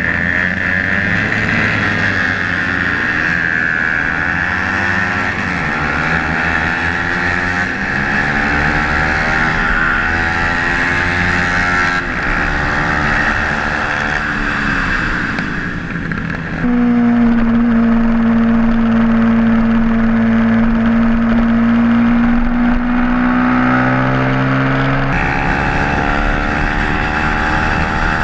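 Racing motorcycle engine at high revs, its pitch repeatedly climbing and then dropping as it accelerates and shifts gears. About two-thirds of the way through the sound changes abruptly to an engine held at a steady high pitch that rises slowly, before the rising-and-falling pattern returns near the end.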